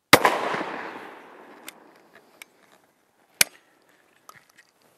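A single shotgun blast fired through a skeet choke tube, its echo fading over about two seconds. A sharp click follows about three and a half seconds in as the gun is opened.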